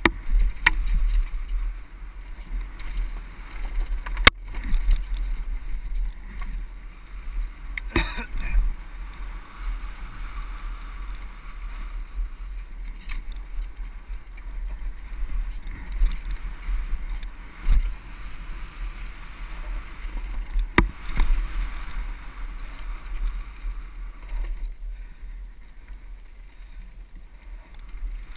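Downhill mountain bike ridden fast down a rough dirt trail: a constant low rumble and hiss of tyres and air rushing past, with sharp knocks and rattles from the bike striking rocks, roots and wooden ladder planks every few seconds.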